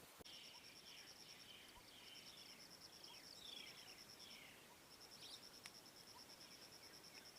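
Faint outdoor ambience: an insect's high, fast, even trill, pausing briefly about five seconds in, with a series of short chirps falling in pitch over the first half.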